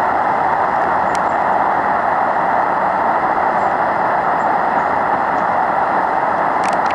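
Steady shortwave static hiss from a Tecsun PL-680 receiver in upper-sideband mode on an idle 11309 kHz aeronautical channel, the noise held within the narrow voice band of the SSB filter.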